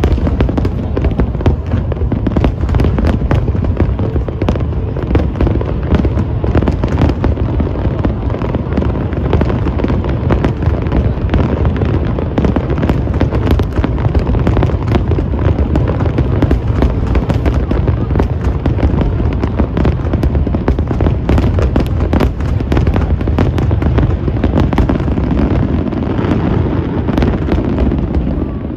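Dense, continuous barrage of aerial fireworks: rapid cracks and bangs packed closely together over a constant low booming rumble.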